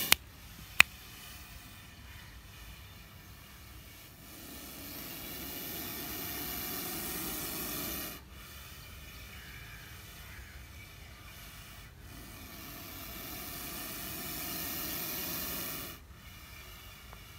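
Cobra hissing with its hood raised: two long hisses of about four seconds each, each swelling louder and then cutting off sharply, several seconds apart. A sharp click about a second in.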